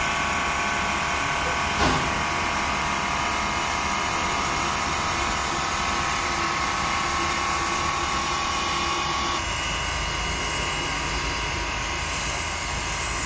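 Sierra Railway No. 28 steam locomotive standing, with a loud, steady hiss of steam. There is a single sharp knock about two seconds in, and the hiss drops a little about nine seconds in.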